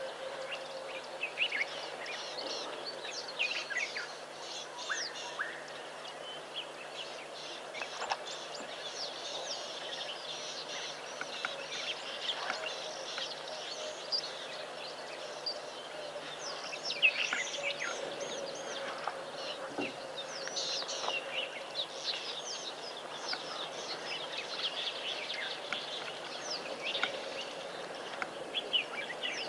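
A chorus of many wild birds chirping and trilling over one another, with a steady low hum underneath that fades out about three-quarters of the way in.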